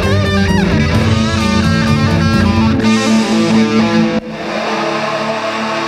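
Rock-style opening theme music led by guitar. The low end drops out a little before three seconds in, and after a brief break just past four seconds the music goes on quieter, in held chords.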